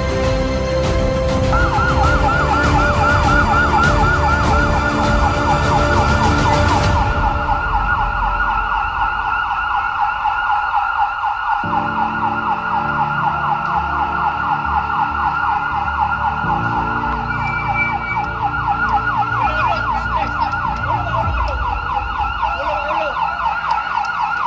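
Electronic siren of a rescue pickup truck running in a fast yelp, its pitch sweeping up and down several times a second, coming in about a second and a half in. Music plays under it for the first several seconds, and a low vehicle rumble stays underneath.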